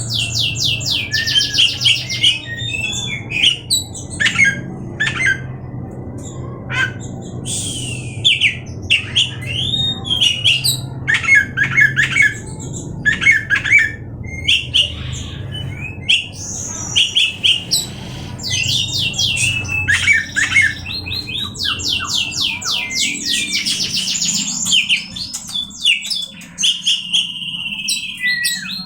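Oriental magpie-robin (kacer) singing a long, varied song: quick phrases of rapid trills, harsh scratchy notes and clear whistles, broken by short gaps, with a longer whistled note near the end.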